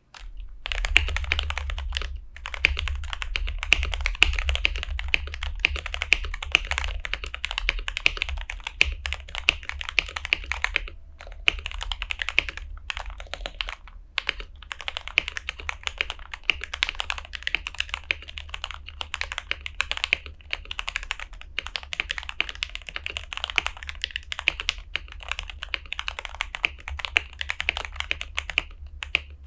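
Typing on a Tester68 mechanical keyboard with Gateron Milky Yellow Pro linear switches: a fast, continuous clatter of keystrokes with a few brief pauses. A steady low hum sits underneath.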